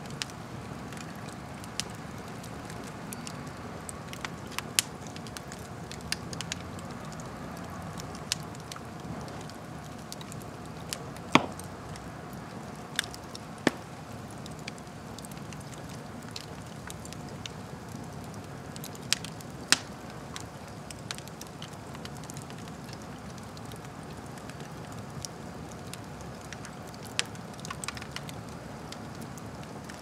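Wood fire burning in an open fireplace: a steady low rustle of flames with sharp crackles and pops at irregular intervals, a few standing out louder than the rest.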